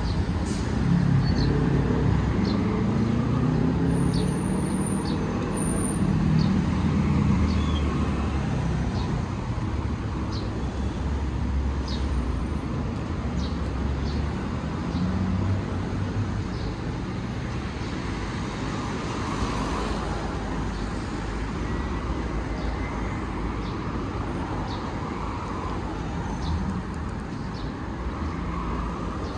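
City street traffic: cars passing on a busy avenue, their engine hum strongest in the first several seconds and then settling into a steadier, slightly quieter wash of road noise.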